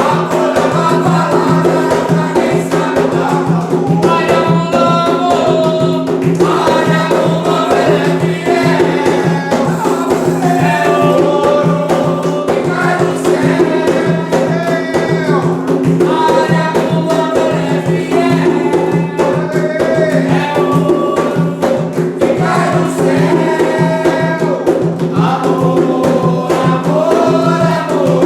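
A group singing an Umbanda ponto (ritual chant) in Portuguese to a steady beat of hand percussion.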